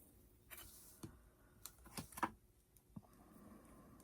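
Faint, scattered light clicks and taps, about six, from small craft pieces and glue being handled on a work table, with the sharpest click a little past two seconds in.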